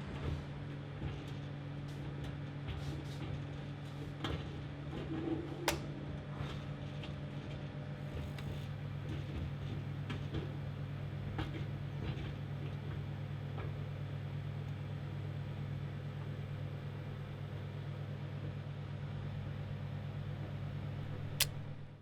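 Microwave oven running with a steady low hum and a few sharp clicks along the way. The hum cuts off suddenly near the end, just after a louder click, as the heating stops.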